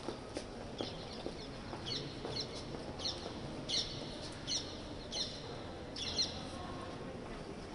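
A small bird chirping repeatedly: a run of short, high, downward-sliding chirps, roughly one or two a second, starting about two seconds in and stopping about a second before the end, over a faint steady background.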